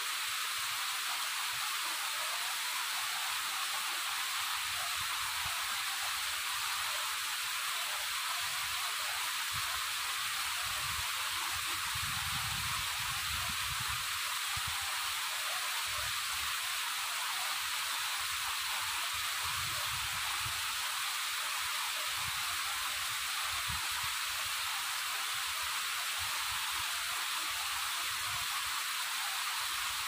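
Waterfall: a steady, even rush of falling water, mostly a high hiss, with a faint low rumble coming and going.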